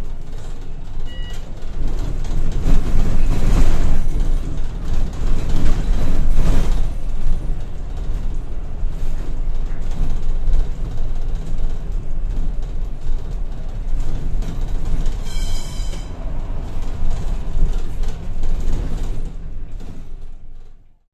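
Inside a Volvo B8RLE single-deck bus under way: steady engine and road rumble through the saloon, with two louder surges of noise in the first seven seconds, fading out near the end.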